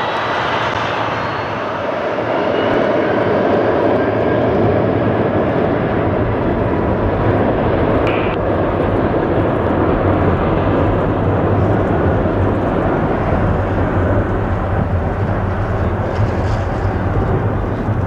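Jet airliner engines at close range, a loud steady roar with a low hum under it that swells a couple of seconds in and holds.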